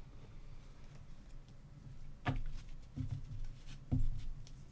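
Basketball trading cards being handled and flipped through in the hands, with two short clicks or taps about two and four seconds in, over a low steady room hum.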